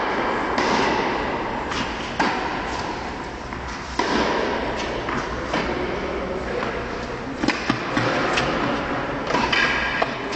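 Tennis rally: a ball struck by rackets and bouncing on the court, a series of sharp hits every second or so that echo in the indoor hall.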